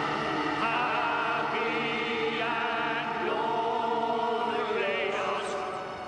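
Music with a choir singing long held notes, a few of them wavering.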